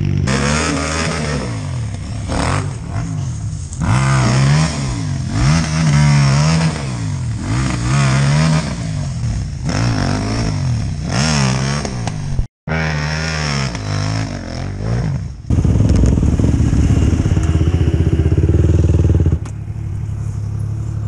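Quad bike (ATV) engine ridden hard, revving up and falling back again and again through throttle and gear changes. There is a brief gap about twelve and a half seconds in. From about fifteen seconds it runs steady and dense, then drops lower and quieter near the end.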